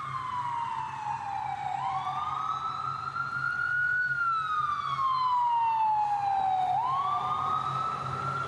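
Emergency vehicle siren wailing: its pitch slides slowly down, then sweeps quickly back up, about twice.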